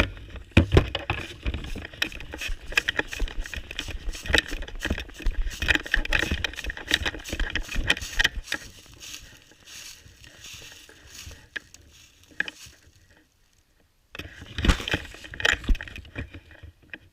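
Rustling and crackling from movement through dry woodland brush, with irregular knocks and low thumps of the camera being jostled. It dies away about 13 seconds in, then starts again briefly.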